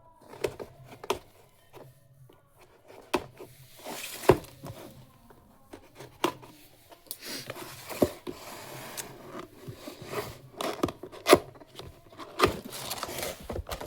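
A keyboard's cardboard box being unsealed and opened by hand: scattered sharp taps, clicks and knocks, with tearing and rustling of the seal and packaging through the second half.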